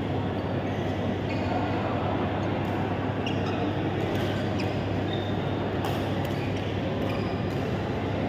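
Badminton rally: racket strings hitting the shuttlecock in a string of sharp pocks, roughly one a second from a couple of seconds in, over the steady low hum and chatter of a large sports hall.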